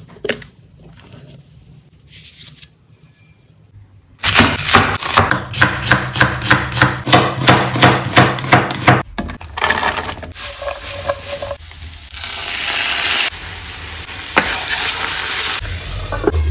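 Quiet handling of a knife box, then a chef's knife chopping a red onion on a wooden board in quick, even strokes, about four a second, for some five seconds. After that comes a steady hiss.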